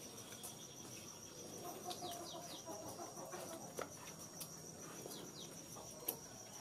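Faint rural ambience: a steady high trill of insects, a few short falling bird chirps, and chickens clucking in the distance.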